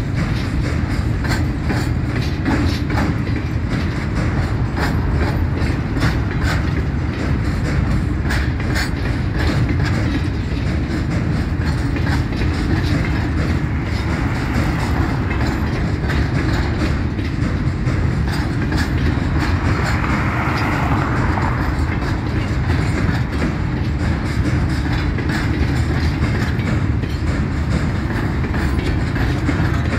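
Empty mineral hopper wagons of a freight train rolling past: a steady rumble of steel wheels on the rails with a rapid run of clicks as the wheels cross rail joints.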